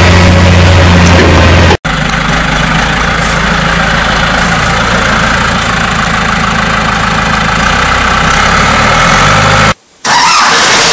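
Farm tractor diesel engines running steadily, heard in edited clips. First there is a deep drone with a slurry tanker in tow. After about two seconds it cuts to a John Deere front-loader tractor at work, and near the end, after a moment's silence, to another John Deere loader tractor's engine.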